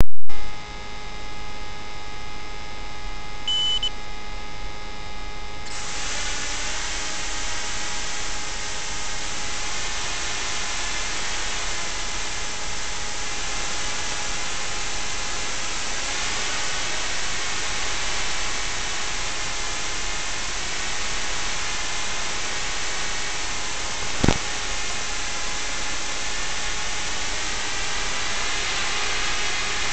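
Steady hiss with faint hum tones, as recorded through an analog FPV goggle's audio channel. The hiss gets louder about six seconds in. A short high beep sounds near four seconds, and a single click comes a little after twenty-four seconds.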